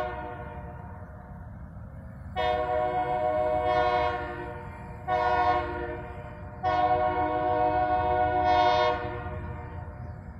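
Multi-note air horn of an approaching GE B23-7 diesel locomotive sounding the grade-crossing signal: the tail of one blast, then a long blast, a short one and a final long one. A steady low rumble runs underneath.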